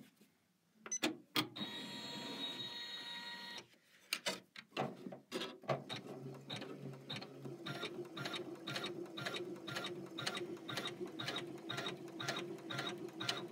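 Janome 500E embroidery machine stitching a tack-down (basting) outline to hold the fabric in the hoop. The needle clicks in an even rhythm of about two to three stitches a second over a low motor hum. Before the stitching there are two clicks and a brief steady whir.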